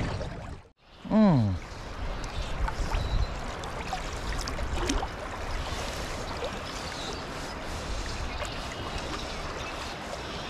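Steady rush of the river's current with wind on the microphone. About a second in, just after a brief dropout, a short, loud vocal sound rises and falls in pitch.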